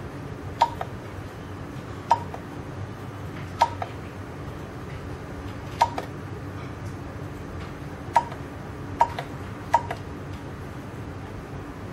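Fingerprint access-control terminal's keypad beeping once at each key press to confirm it. Seven short, high beeps come at uneven intervals, three of them close together past the middle, over a steady low background hum.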